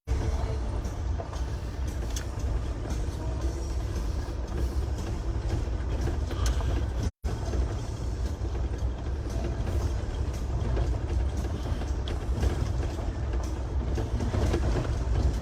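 Vehicle driving, heard from inside the cabin: a steady low rumble of engine and road noise, cut off for an instant about seven seconds in.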